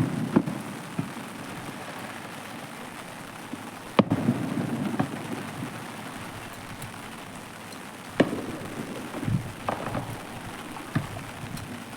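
Aerial firework shells bursting: a sharp bang just after the start, another about four seconds in and another about eight seconds in, then a few lighter pops near the end. The big bangs trail off in a deep, rolling rumble over a steady background hiss.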